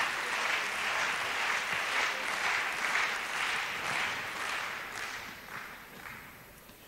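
Tennis crowd applauding a won point, the clapping fading away over the last two seconds or so.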